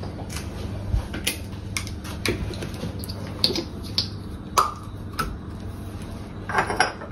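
Kitchen items being handled: scattered light clicks and taps, with a short clatter near the end.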